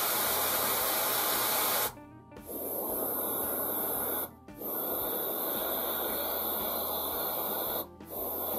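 Airbrush spraying acrylic silver paint: a steady hiss of air and paint in bursts of a few seconds, cut off three times by short pauses as the trigger is let go.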